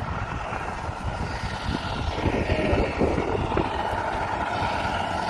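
Roadside traffic noise with a steady engine hum, and wind rumbling on the microphone.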